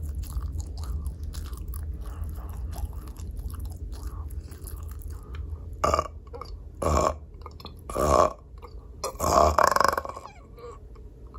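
Close-up mouth sounds of a person chewing microwaved pizza with wet, clicking bites, then burping loudly four times in a row, the last burp the longest.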